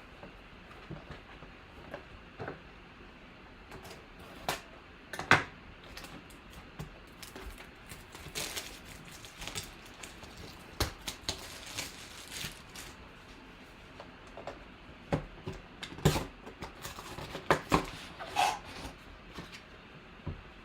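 Hands opening a sealed box of trading cards and its packs, with packaging rustling and crinkling and scattered sharp clicks and taps of cardboard and wrappers being handled.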